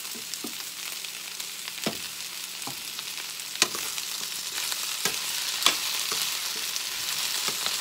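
Sliced zucchini and ground meat sizzling in a hot skillet with freshly added olive oil, the sizzle growing a little louder partway through. A spatula stirs the vegetables and knocks sharply against the pan several times.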